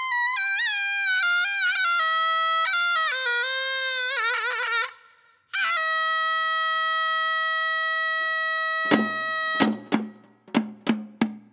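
Taepyeongso (hojeok), the Korean double-reed shawm with a brass bell, playing a solo melody with a wide vibrato. The line steps downward, breaks for a breath about five seconds in, then holds one long note. Near the end a drum comes in with a run of sharp strokes.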